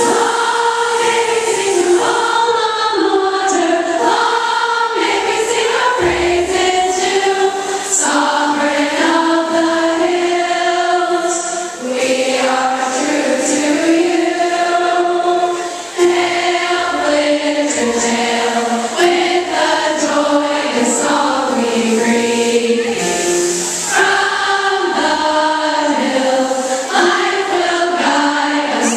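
A large crowd of high-school girls singing the school alma mater together in long, held sung lines.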